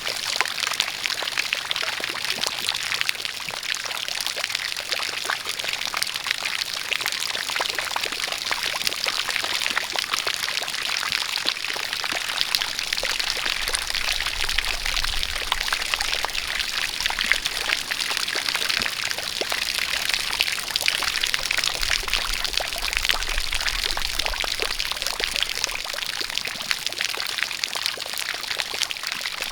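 Rain falling together with a spout of water pouring steadily, making an even, dense hiss of drops and splashing.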